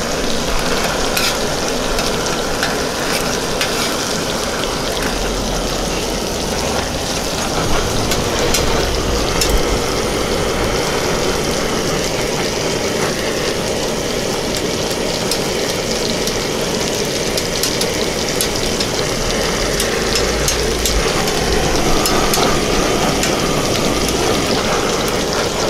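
Chopped meat and potato pieces frying on a flat steel griddle with a steady sizzle, while metal spatulas scrape, chop and tap against the plate in frequent sharp clicks.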